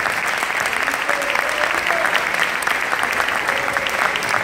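Crowd applauding: dense, steady hand clapping with no break.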